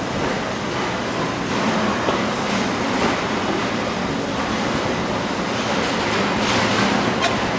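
Steady machinery din of a car assembly plant floor, heard while riding a cart rolling along the aisle, with a short high squeak near the end.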